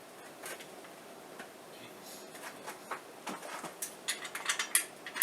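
Light clicks and small taps, scattered at first, then a quicker run of sharper ticks over the last couple of seconds.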